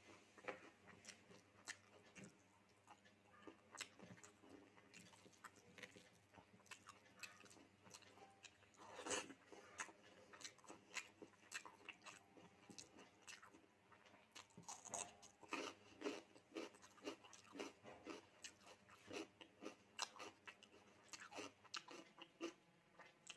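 Faint close-miked eating sounds: chewing with many small clicks and crunches scattered throughout, and a louder one about nine seconds in.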